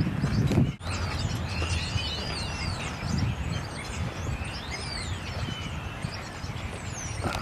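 Several birds chirping and whistling, short rising and falling calls overlapping one another, over a steady low outdoor rumble. The sound briefly drops out a little under a second in.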